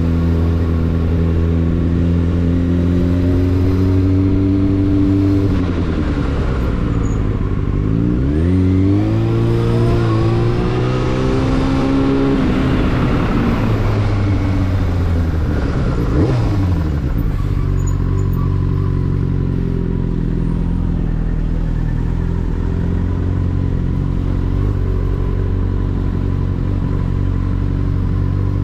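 Yamaha Fazer 600's inline-four engine running under a rider. It holds a steady note, then the revs fall, dip and climb again through the middle, and settle to a steady lower note for the last ten seconds or so.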